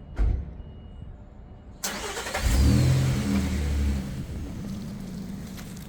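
Work van's engine starting: a sudden cranking noise about two seconds in, the engine catching with a brief rev, then settling into a steady idle. A single thump near the start.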